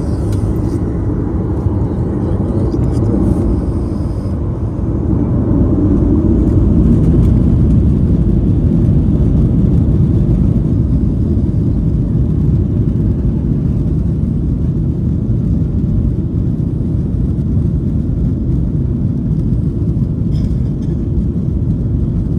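Boeing 737 jet engines and runway rumble heard inside the cabin as the plane starts its take-off roll: a steady low rumble that grows louder about five seconds in and stays loud.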